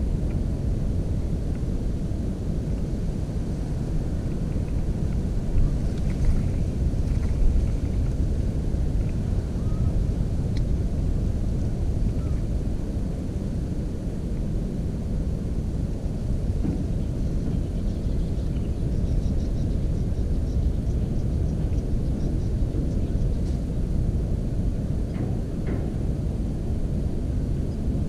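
Steady low rumble of wind buffeting an outdoor camera microphone, with a few faint high ticks and calls above it.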